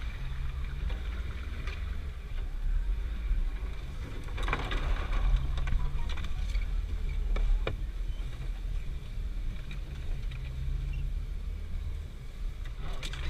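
A Jeep Wrangler's engine runs low and steady as it crawls over a rough off-road trail, heard from inside the cabin. Scattered knocks and a brief scrape from the body and the brush are heard along the way.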